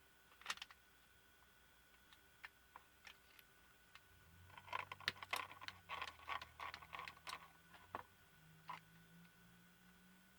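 Faint small clicks and taps of the projector's small plastic and metal parts being handled and pried during disassembly, a dense run of them in the middle.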